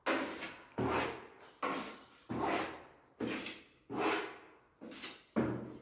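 Steel putty knife scraping and scooping wall filler in a plastic bucket and onto a hand board. There are about eight strokes, one every second or less, each starting sharply and fading away.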